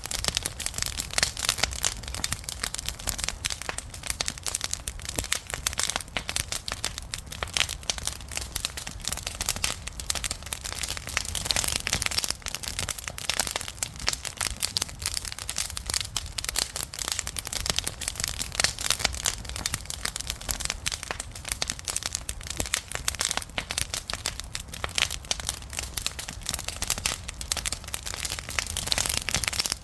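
Wood fire crackling and popping continuously, with many small sharp snaps over a low rumble.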